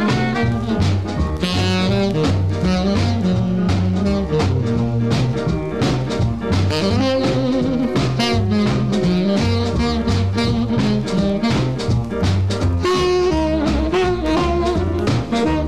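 Instrumental passage of an up-tempo swing song: horns carry the melody over a steady drum beat and a stepping bass line.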